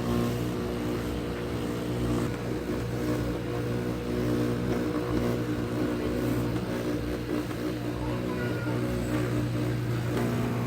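A steady low mechanical hum with even overtones, unchanging throughout, like an idling engine or a running motor.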